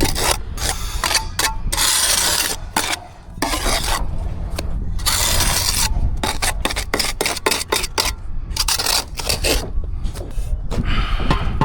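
Steel brick trowel working mortar: several scrapes of half a second to a second, with many short sharp taps and knocks in between.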